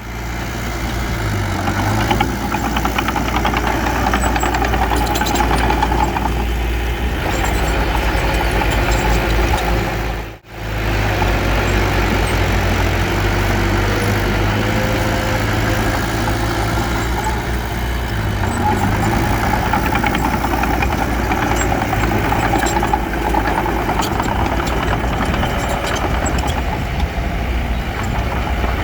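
Heavy diesel construction machinery engine running steadily, the kind of a bulldozer working dirt. The sound drops out for an instant about ten seconds in, then carries on.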